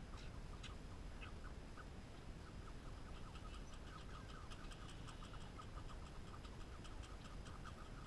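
A red squirrel cracking and chewing black oil sunflower seeds close by: a run of small, irregular clicks that come thicker and faster from about three seconds in, over a steady low background hum.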